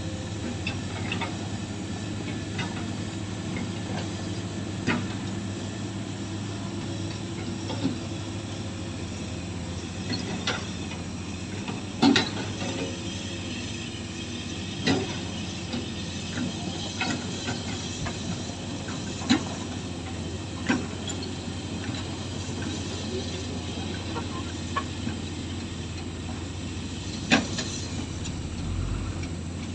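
Excavator's diesel engine running steadily, with sharp knocks every few seconds as it works the loose material. The loudest knocks come about twelve and twenty-seven seconds in.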